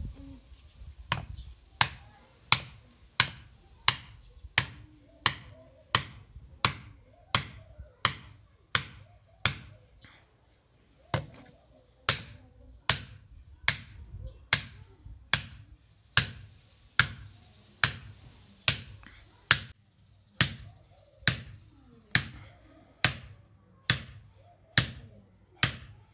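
Hammer driving a whittled wooden stake into hard ground: a steady run of sharp knocks on the stake's top, about three every two seconds, with a short pause about ten seconds in.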